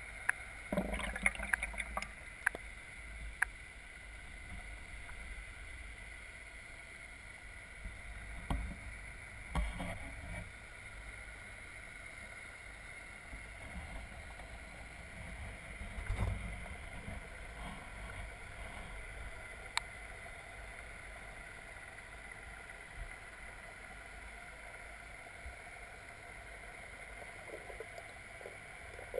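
Muffled underwater sound of a garden pond, picked up through a waterproof camera housing: a steady low rumble and a thin high hum. A few sharp clicks come in the first few seconds, and dull knocks come about 9 seconds in and again about 16 seconds in.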